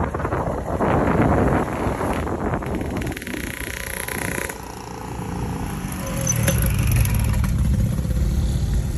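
Wind buffeting the microphone on a moving vehicle, with a low engine rumble that gets stronger from about six seconds in.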